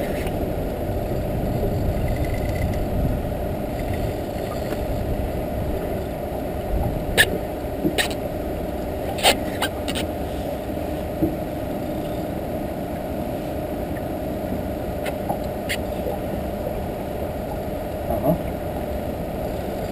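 A boat's engine idling in a steady low rumble, with a few sharp clicks and knocks between about seven and sixteen seconds in.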